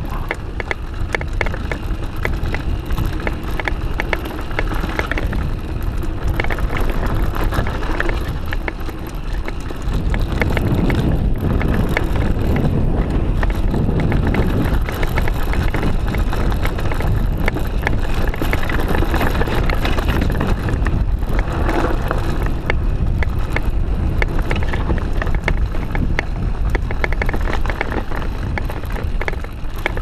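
Mountain bike riding fast down a dirt trail: tyres rolling over dirt, with the bike rattling and clattering over bumps and wind buffeting the chest-mounted microphone. The noise grows louder from about ten seconds in.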